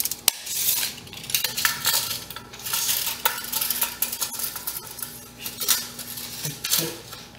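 Steel tape measure being pulled out and laid along a wooden 2x4: the metal blade rattles, clicks and scrapes against the wood in irregular bursts, with a sharp click just after the start.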